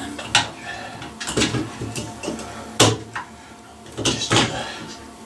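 Irregular plastic clicks and knocks from a screwdriver and wires being worked against the plastic base of an LED ceiling light fitting, about six in all, the loudest a little before three seconds in.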